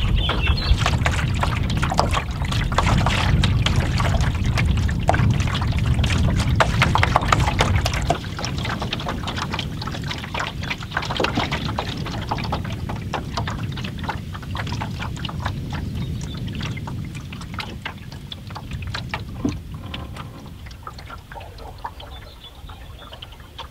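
Canoe paddle strokes through the water: the blade dipping and pulling, with splashes and drips running off it. A low rumble lies under the first eight seconds or so and then cuts off, and the splashing grows quieter toward the end.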